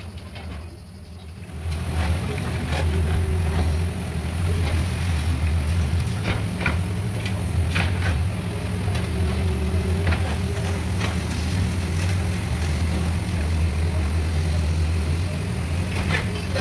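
Hydraulic excavator's diesel engine running under load, louder from about two seconds in, with scattered cracks and knocks of concrete breaking and rubble falling as its bucket crushes a building's walls.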